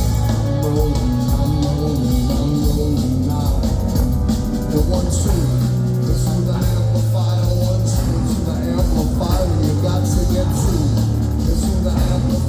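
Rock band playing live: a drum beat over a bass line of long held notes, with the full band sounding steadily throughout.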